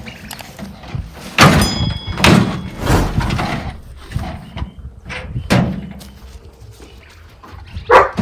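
A heavy metal toolbox being handled: a string of loud thunks and knocks, the first followed by a brief metallic ring.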